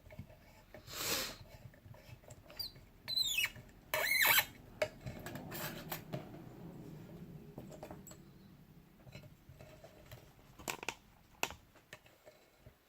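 A padlock being handled and clamped into a bench vise: a scrape, a short squeaky screech, a louder scrape, then a few light clicks and taps.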